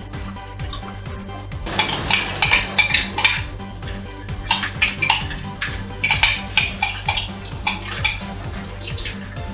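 Metal spoon scraping and clinking against a glass and a frying pan as sour cream is scooped out into the pan, in two runs of quick clinks starting about two seconds in.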